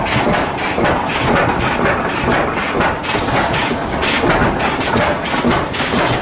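Old stationary gas engines running at once, a dense, irregular clatter of knocks and thumps from their exhaust beats and machinery.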